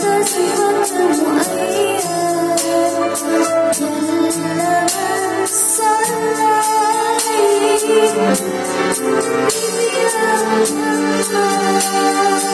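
A girl singing a melody into a handheld microphone over backing music with a steady beat.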